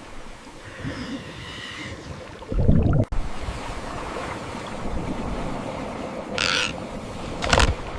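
Floodwater and wind ambience, a steady wash of noise, with a short pitched cry about a second in and a heavy low thud near the three-second mark; a couple of sharp splashing crashes come near the end.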